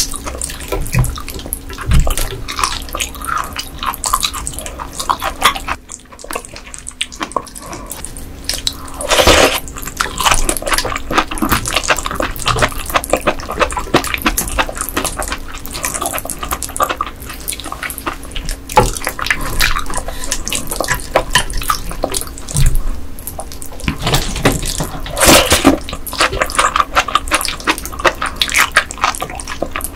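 Close-miked wet eating sounds of raw ice gobies: dense squelching, smacking chewing and slurping. Two louder wet slurps come, one about ten seconds in and one near the end.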